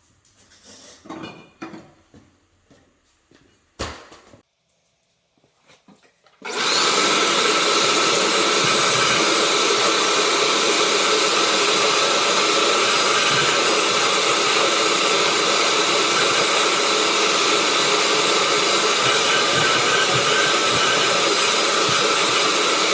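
Loud, steady rushing noise of a machine running. It starts abruptly about six seconds in, holds an even level and cuts off sharply at the end. Before it come faint handling knocks and a single click.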